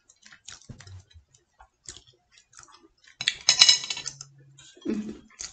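Wooden chopsticks clicking lightly against a porcelain platter as steamed fish is picked apart, with a louder, noisier stretch about three seconds in.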